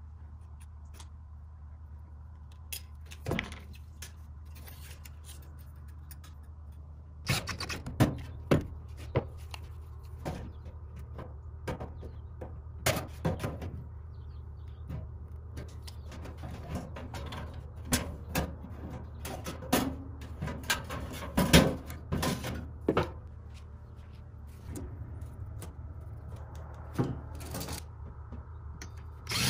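Sheet metal and hand tools being handled on a workbench: scattered sharp clicks and light metallic knocks over a steady low hum. The knocks begin about a quarter of the way in and are thickest around the middle.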